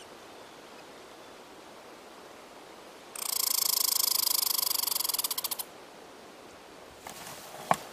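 American red squirrel giving its territorial chatter: a loud, rapid, buzzy rattle about two and a half seconds long that slows into separate pulses at the end. A few sharp clicks follow near the end.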